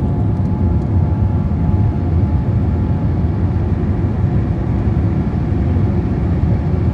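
Airliner cabin noise in flight: the jet engines and rushing air heard from a window seat over the wing, a steady deep noise with a faint steady hum above it.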